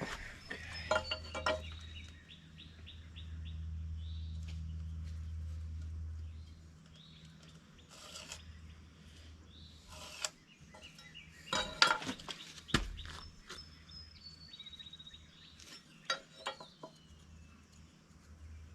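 A few sharp knocks and clatters, the loudest about twelve seconds in, with small birds chirping and a low steady hum that stops about six seconds in.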